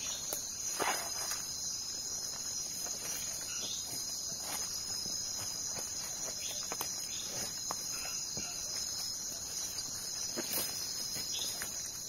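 A steady, high-pitched chorus of night insects, with footsteps and the rustle of plants being brushed aside at irregular moments.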